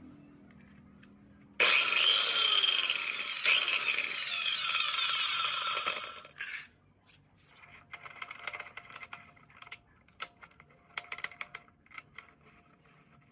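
An electric cutting machine starts abruptly and runs loudly for about four seconds, its pitch sliding as it goes, then stops. Light scraping and rubbing follow.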